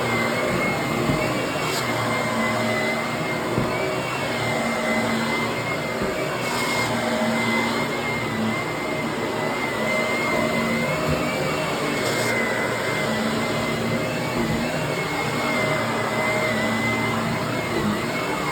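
Vacuum cleaner running steadily, its motor giving a high whine that wavers slightly in pitch. A few short hissy bursts come and go, about 2, 7 and 12 seconds in.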